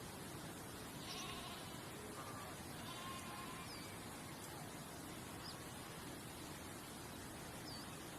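Steady hiss of outdoor ambience. Two faint, wavering animal calls come about one and three seconds in, and a few short high chirps follow later.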